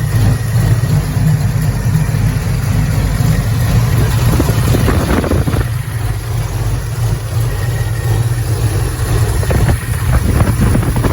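Car engine with an Edelbrock 650 AVS2 four-barrel carburetor idling steadily, its air and fuel mixture screws never tuned; the owner takes it to be running too lean. A few brief rustling noises come in around the middle and near the end.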